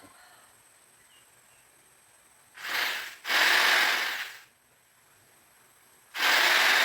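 Three short rushes of hissing noise, each about a second long, the first two close together and the third a couple of seconds later.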